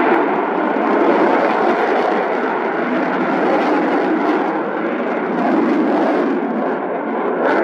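Eurofighter Typhoon's twin Eurojet EJ200 turbofan engines as the jet manoeuvres overhead: a loud, steady jet rumble that swells and eases slightly.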